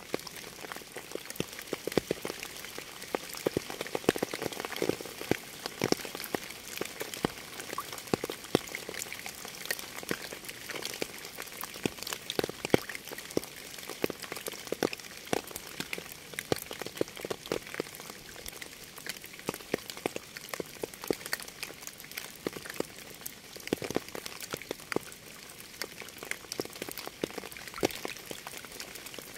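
Steady rain, with close individual drops heard as dense, irregular pattering clicks over an even hiss.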